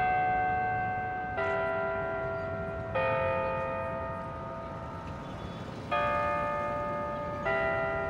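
Bells of different pitches struck one at a time, five strikes, each ringing on and slowly fading before the next, mostly about a second and a half apart with one longer gap in the middle.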